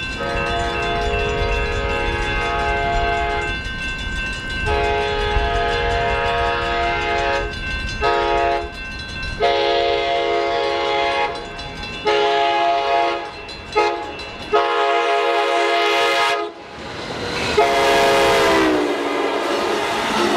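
Multi-chime air horn on Pacific Surfliner cab car 6908, in the setup it got from cab car 6952, sounding a long-long-short-long crossing signal followed by several more blasts. The last blast near the end falls in pitch as the train passes. Low train rumble runs underneath.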